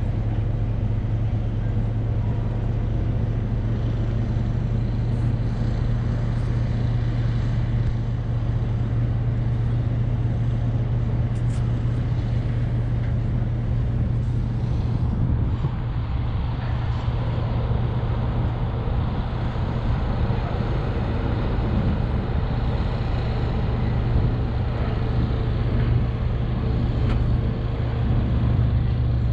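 Steady low vehicle engine drone, heard from inside a pickup's cab, with a constant hum and a wash of road and engine noise.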